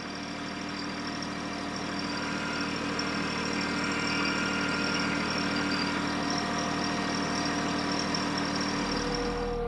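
TYM T264 compact tractor's diesel engine running at a steady speed while the tractor creeps slowly along, pulling a seed planter.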